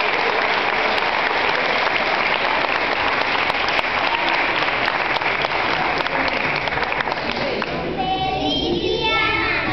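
Audience applauding steadily, dense clapping that thins out near the end as a few voices come through.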